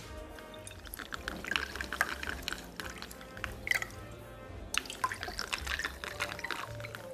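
A drink poured from a glass bottle into a shot glass, liquid trickling with scattered short ticks and clinks, over background music.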